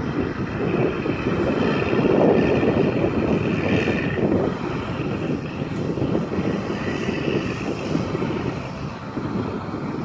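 John Deere tractor's diesel engine running under way as it tows a large three-axle trailer, a steady rumble that is loudest a couple of seconds in as it passes closest, then eases off slightly.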